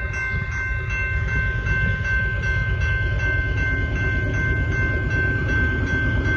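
Approaching BNSF freight train's diesel locomotives giving a steady low rumble. Over it comes a steady ringing in several high tones that pulses about three times a second.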